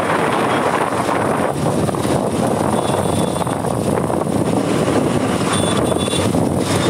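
Motorcycle riding at speed: a loud, steady rush of wind on the microphone over the Bajaj Pulsar 220's single-cylinder engine.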